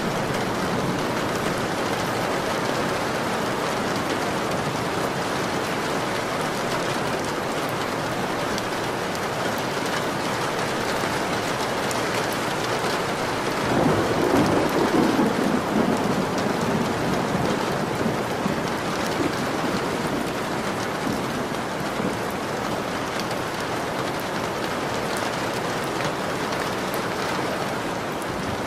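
Steady rain falling, with a rumble of thunder about halfway through that swells and fades over a few seconds.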